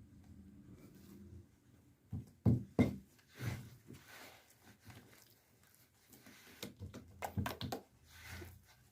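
A big lump of homemade glue-and-boric-acid slime being handled and slapped about on a table, giving a scatter of short, soft knocks in two clusters.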